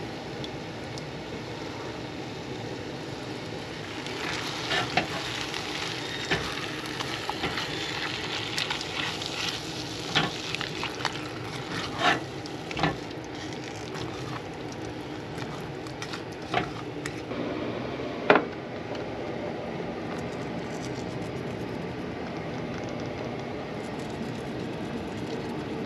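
Onions and meat with brown gravy sizzling steadily in a stainless steel saucepan on a gas stove, while a spatula stirs and scrapes, knocking sharply against the pan several times in the first two-thirds.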